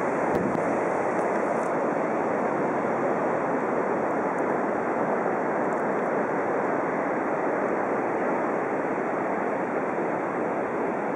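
Ocean surf on a beach, a steady, even rush of noise with no breaks.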